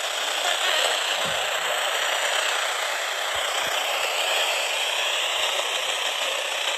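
Steady, even hiss of radio static with no tones or voice in it.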